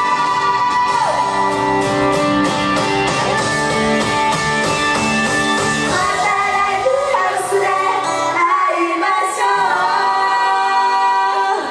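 Live idol pop song sung by three women into microphones over full backing music, in the song's closing bars. About two-thirds of the way through, the bass and beat drop out, leaving held chords under the voices.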